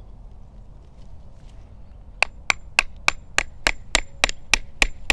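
Small hatchet chopping at the bark at the base of a tree trunk: a quick, even run of sharp strikes, about three a second, starting about two seconds in.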